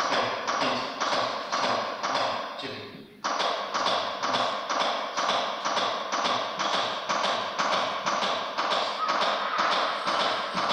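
A steady tapping beat at a little under two a second, the pace of chest compressions on a CPR training manikin, with a brief break about three seconds in.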